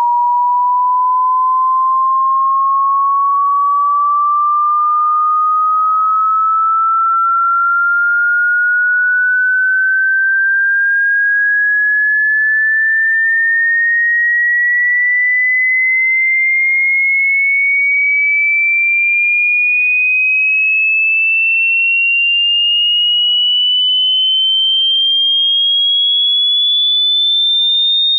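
A single pure test tone climbing slowly and evenly in pitch, from a mid-range whistle to a high one, at a steady loudness: a hearing-test frequency sweep.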